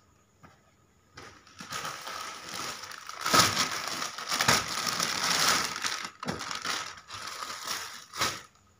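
Clear plastic packaging around a folded suit crinkling and crackling as it is handled and opened, starting about a second and a half in, with a short pause near the end.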